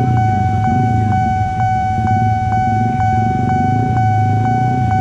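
Nippon Signal electronic level-crossing alarm sounding: a steady ringing tone pulsing about twice a second, with a low rumble underneath.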